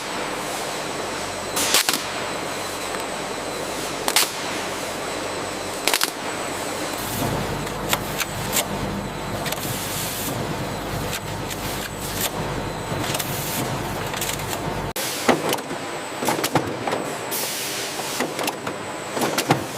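Factory production-line machinery running steadily, with sharp clacks about every two seconds. A low rumble joins it from about seven seconds in and cuts off suddenly near fifteen seconds, after which the clacks come more often.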